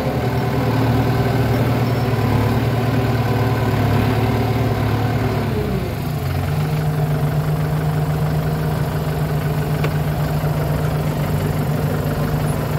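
Kubota M9540 tractor's four-cylinder diesel engine running steadily, heard from the driver's seat. Its note changes pitch about six seconds in, then holds steady again.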